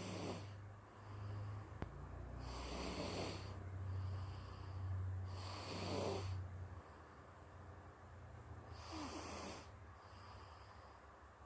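A person snoring in sleep, four snores about three seconds apart, with a steady low hum underneath during the first seven seconds or so.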